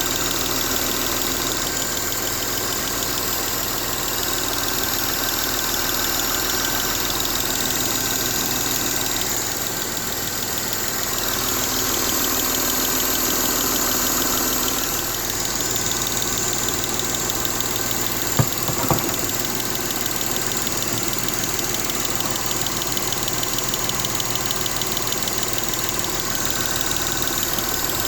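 Mercedes-Benz M272 V6 engine running steadily with a ticking noise in its running sound. Two short sharp clicks come about half a second apart, about two-thirds of the way through.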